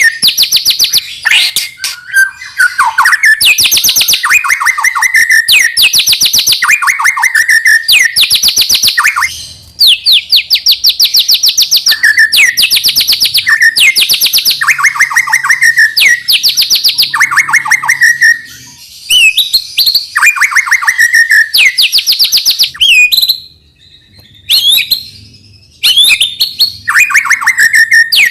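White-rumped shama singing: loud, fast rattling trills, each about a second long and often ending in a downward slide, repeated one after another with a few short breaks.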